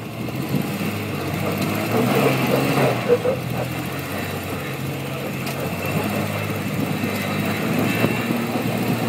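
Rock-crawling Jeep YJ's engine running under load as it crawls up a steep rock slab, louder for a moment around two to three seconds in.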